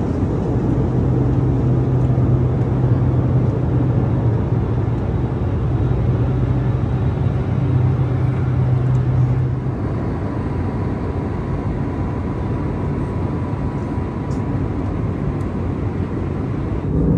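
Steady rushing noise of air and engines inside an Airbus A321neo cabin in flight. About ten seconds in, the sound changes: a low hum drops away and the noise turns a little quieter, with a faint steady tone.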